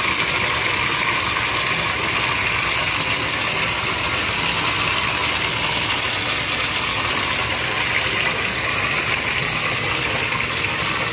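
Shower water running steadily, spraying into a bathtub.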